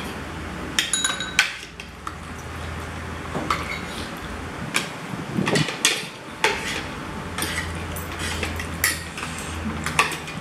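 Knives, forks and spoons clinking and scraping on ceramic plates as grilled chicken is cut up, in irregular short clinks, over a steady low hum.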